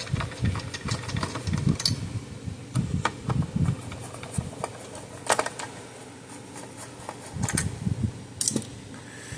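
Irregular clicks, taps and low knocks of a screw being undone and parts being handled inside an electric fence charger, over a steady low hum.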